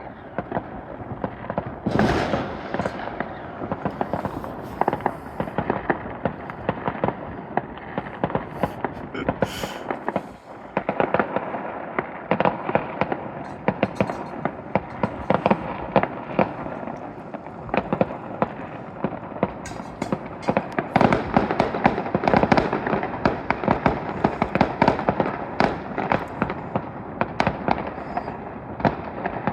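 Fireworks from several displays going off at once: a dense, continuous crackle of overlapping bangs and pops with no pause.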